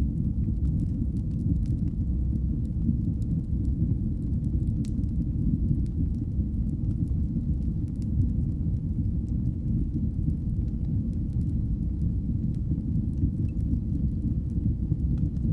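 Fire burning in a fireplace: a steady low rumble of flames with faint, scattered crackles.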